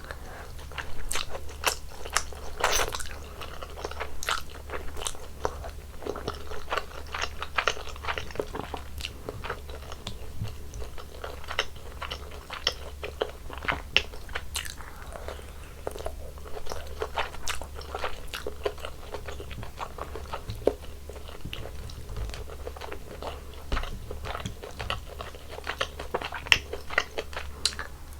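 Close-miked eating of mala-tang: irregular crunching bites and chewing, with many small mouth clicks.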